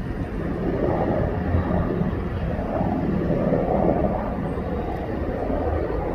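Helicopter flying overhead, a steady rumble of rotor and engine that swells a little in the middle.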